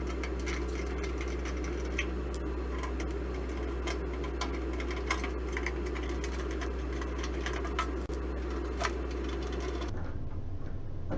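Light metallic clicks and ticks of a hand screwdriver working screws out of a toaster oven's sheet-metal back, over a steady hum.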